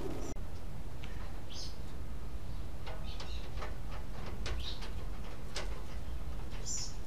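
Small birds chirping now and then over a steady low rumble, with a few light knocks as someone climbs the rungs of an extension ladder.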